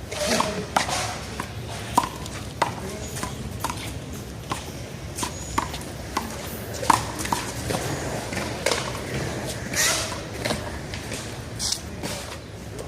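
Rubber handball smacked by hands and bouncing off the wall and the pavement during a one-wall handball rally: an irregular string of sharp smacks, about one or two a second.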